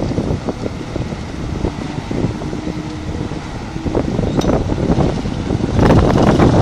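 Wind buffeting the microphone in rough gusts, growing stronger near the end, with a faint steady hum for a couple of seconds in the middle.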